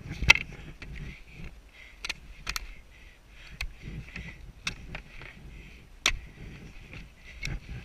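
Ski-jumping skis knocking and scraping against the snowy inrun track and start bench as they are set in place: a string of sharp clicks and knocks, the loudest about a third of a second in, over a steady hiss.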